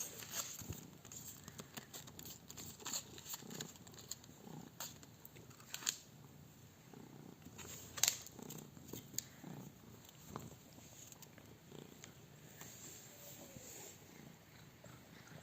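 Domestic cat purring softly, with scattered sharp clicks and light rustles over it, the loudest click about 8 seconds in.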